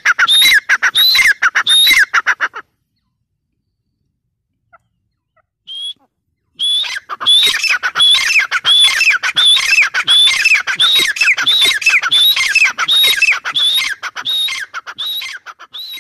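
Grey francolin calling: a loud, fast series of shrill repeated notes, about three a second. The series breaks off about two and a half seconds in, and after a pause and a single short note it starts again and runs on.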